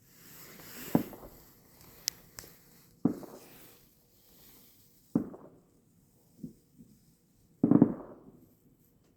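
Distant fireworks going off: four dull booms about two seconds apart, each fading out, the last one the loudest. A sharp crack comes a couple of seconds in.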